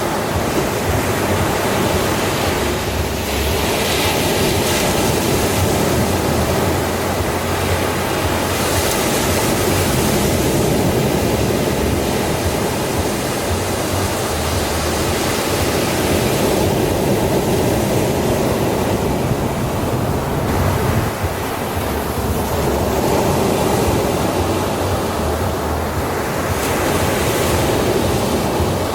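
Ocean surf washing onto a sandy beach: a continuous rushing that swells every several seconds as each wave breaks and then eases off.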